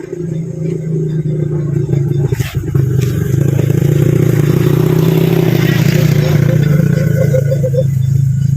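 Motorcycle engine running close by, growing louder over the first three seconds and then holding steady.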